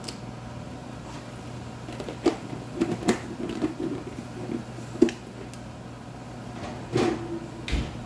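A few scattered light knocks and clicks, the sharpest about five seconds in, over a steady low hum.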